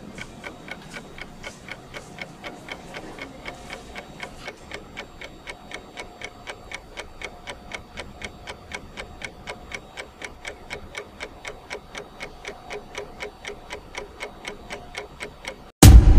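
Clock ticking evenly, about three ticks a second. Near the end it cuts out and loud music starts suddenly.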